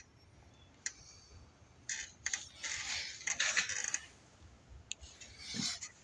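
Two light metallic clicks, then stretches of scraping and rustling from hands handling metal car parts.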